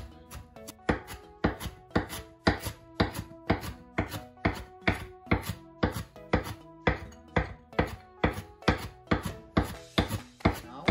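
Chef's knife chopping fresh Italian parsley on a wooden cutting board: quick, even chops about two or three a second.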